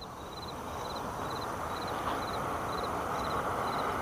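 Insect chirping steadily, short pulsed high chirps about twice a second, over a low rushing noise that grows slightly louder.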